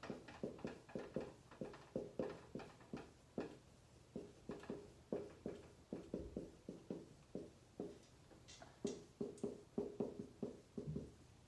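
Dry-erase marker writing on a whiteboard: a quick, uneven run of short squeaks and taps as each letter is stroked, with a few sharper, higher squeaks about two-thirds of the way through.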